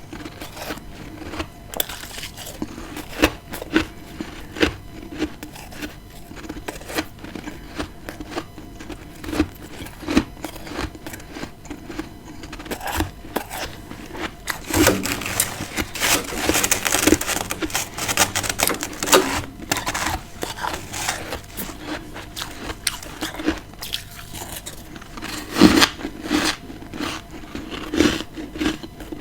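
Close-miked biting and chewing of freezer frost, many crisp irregular crunches. The crunching grows denser and louder about halfway through, and there is one loud crunch near the end.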